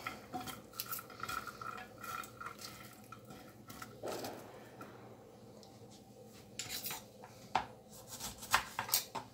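Light, scattered clinks and taps of hands and sliced red onion against a ceramic dish as the onion rings are tossed by hand, with a few sharper clicks in the second half.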